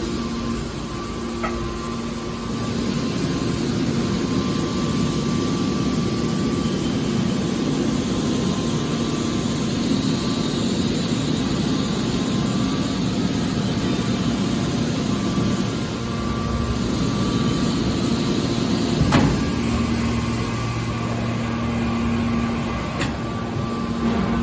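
Hydraulic scrap metal baler running: a steady machine hum with a held tone through it, and one sharp knock about nineteen seconds in.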